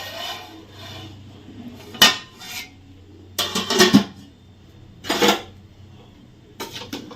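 A metal spoon scraping and clinking against a pot of cooked biryani in four short bouts, as the rice and chicken are scooped up.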